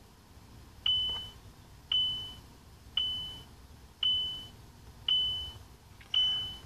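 Six electronic beeps at one high pitch, evenly spaced about a second apart, each starting sharply and fading quickly.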